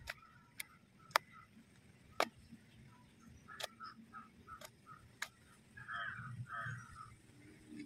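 Crows cawing a few times, with two caws close together about six seconds in. Several sharp clicks are scattered through the first five seconds.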